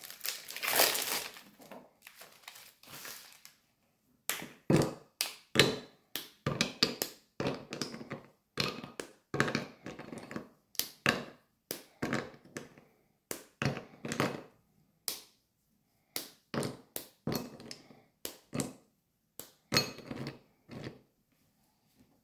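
Kitchen handling sounds: crinkling for the first two seconds, then a string of short, light taps and knocks, about one or two a second, stopping shortly before the end.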